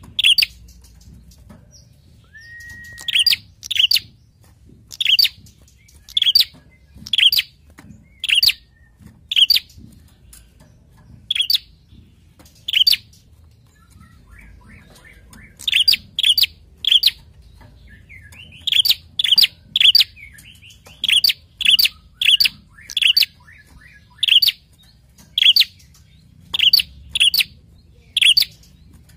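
A caged prenjak singing: loud, sharp chirps repeated about once a second, with a short steady whistle about two and a half seconds in. After a brief lull the calls quicken into a faster run.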